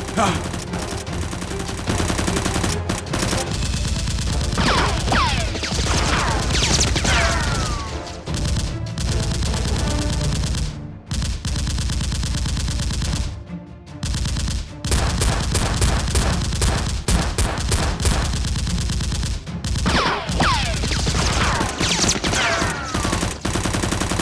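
Rapid automatic gunfire sound effects, long runs of fast shots dubbed over the Nerf blaster fight, with two brief pauses about halfway through.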